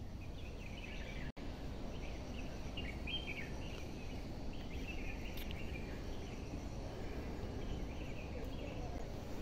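Outdoor woodland ambience: small birds chirping on and off for the first several seconds, over a steady low rumble of wind or handling noise on the microphone.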